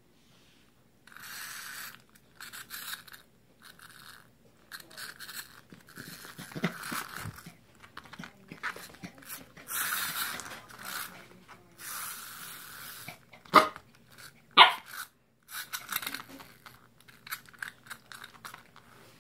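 Pembroke Welsh Corgi puppy barking and making short excited bursts of noise at a small toy, with two sharp, loud barks about a second apart roughly three-quarters of the way through.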